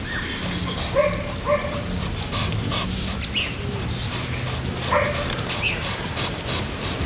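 A dog gives a few short barks, two about a second in and one more later, over a steady low hum.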